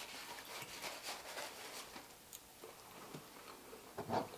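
Faint mealtime sounds at a table: soft chewing and scattered small clicks of a fork on a plate, one slightly louder click about four seconds in.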